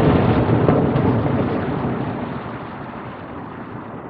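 Aerial firework shell bursting: a loud boom at the start, then a rolling rumble and echo that fade over about three seconds, with a smaller pop under a second in.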